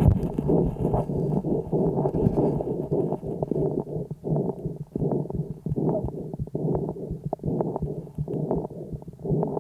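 A sick calf's lung sounds on the right side of the chest, picked up by a homemade stethoscope microphone on the third day of illness. The breath sound is muffled and rises and falls, with many short sharp clicks throughout.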